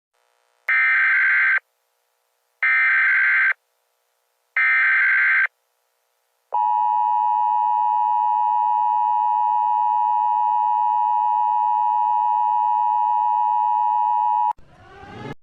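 Emergency Alert System tones: three short, harsh, buzzy bursts of SAME header data, each about a second long and a second apart, then the long steady attention tone for about eight seconds, which cuts off suddenly. A brief, faint sweeping sound follows at the very end.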